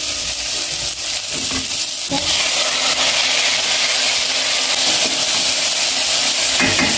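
Onions, green pepper and chopped tomatoes sizzling in hot oil in a stainless steel pot, stirred with a wooden spoon. The sizzle gets louder and fuller about two seconds in, as the tomatoes go into the oil.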